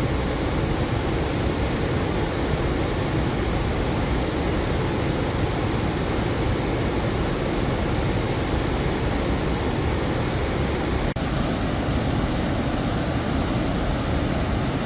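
Loud, steady rushing of floodwater released through the opened spillway gates of the Salal Dam into the swollen Chenab River, with a momentary break about eleven seconds in.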